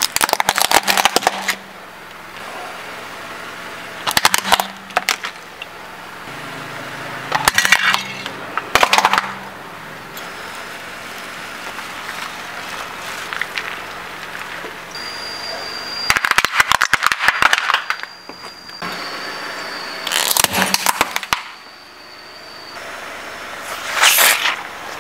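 Car tyre rolling over and crushing small objects one after another (plastic toys, bananas, rubber ducks): about seven bursts of cracking and crunching a few seconds apart, over the low sound of the car running.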